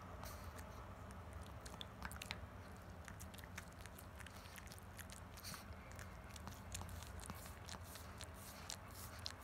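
Pekingese dog gnawing a hard chew stick: irregular small clicks and crunches of its teeth on the treat.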